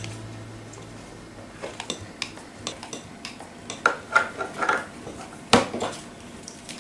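Plastic Play-Doh tools being handled on a table, clicking and clattering in a scatter of light knocks, with one sharper knock about five and a half seconds in.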